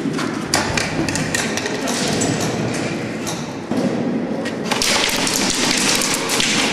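Airsoft guns firing: scattered sharp shots and BB impacts, thickening into rapid bursts of fire about two-thirds of the way in.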